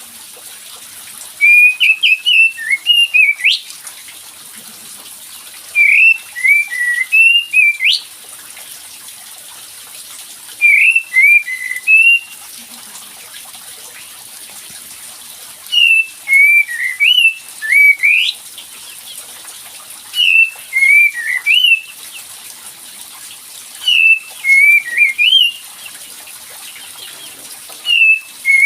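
Song of a kapas tembak bird played as a lure call to provoke other birds into singing. Phrases of quick, rising and falling whistled notes, each about two seconds long, repeat roughly every four to five seconds over a steady hiss.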